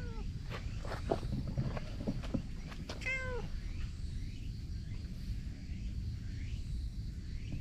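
A domestic cat meows once about three seconds in, a short call that rises a little and then falls, over a low steady rumble.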